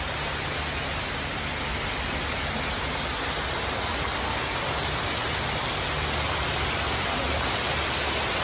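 Man-made stream cascading over rocks: a steady rush of flowing water.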